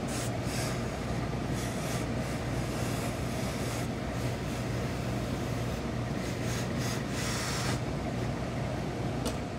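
Industrial steam iron pressing suit trousers: steam hissing in several short bursts and one longer burst near the end, over a steady low machine hum.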